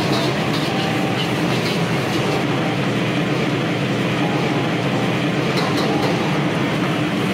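Steady roar of a gas wok burner and kitchen exhaust at a stir-fry station, with a ladle clinking and scraping in the wok a few times as fried rice is stirred.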